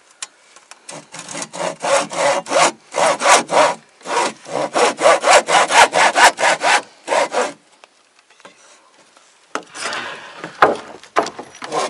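Hand saw cutting through a wooden batten with regular back-and-forth strokes, about three or four a second. The sawing pauses briefly twice, stops for about two seconds past the middle, then starts again near the end.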